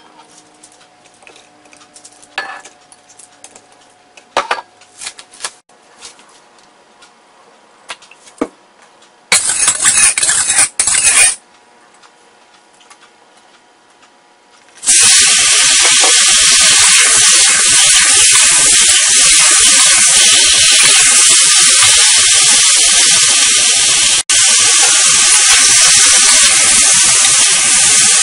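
A few light clinks and taps, a short burst of hiss around nine seconds in, then beef chunks go into hot oil in a wok and sear with a loud, steady sizzle for the rest of the time.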